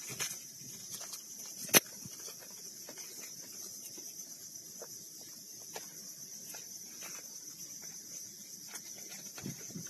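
Insects droning steadily at a high pitch. A single sharp click comes a little under two seconds in, with a few faint ticks scattered through.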